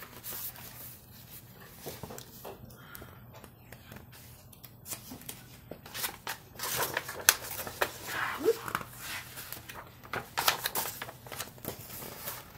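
Pages of a paperback picture book being turned and handled close to the microphone: paper rustling and flapping in short bursts, busiest through the middle and second half as the pages are flipped.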